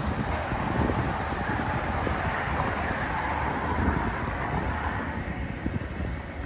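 A train rolling past with a steady rumble, the noise easing off about five seconds in.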